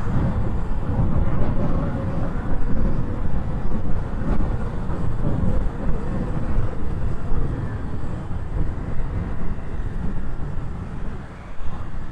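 Wind rumbling and buffeting on a clip-on pin microphone while riding in traffic, a dense, uneven low roar; the vehicle's own engine and exhaust barely come through.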